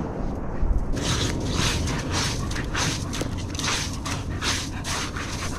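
A dog digging in sand with its front paws, about three quick scraping strokes a second with sand spraying, starting about a second in. A low wind rumble on the microphone lies underneath.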